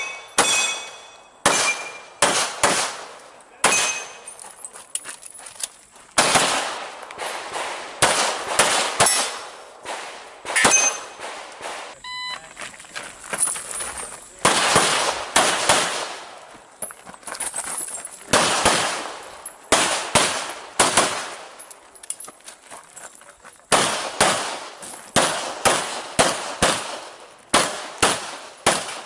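Pistol shots fired in quick strings and pairs as a shooter moves through a practical-shooting stage, with steel targets ringing briefly on some hits.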